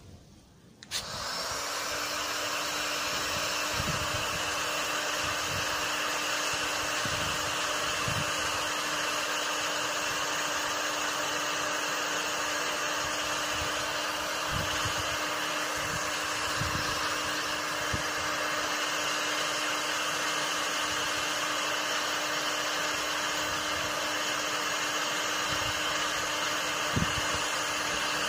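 Parkside heat gun switched on about a second in, then running steadily: a strong rush of blown air over an even motor hum.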